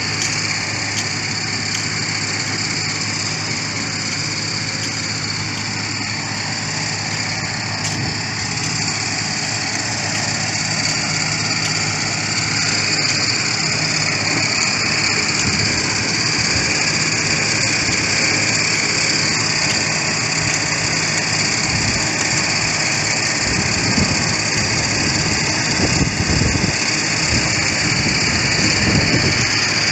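Construction machinery engine running steadily, with a steady high hiss over a low drone and some irregular low thumps in the second half.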